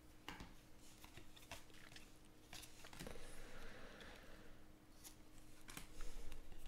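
Baseball trading cards being flipped and slid over one another in the hands: soft clicks and a brief rustle of card stock, about one every second, over a faint steady hum.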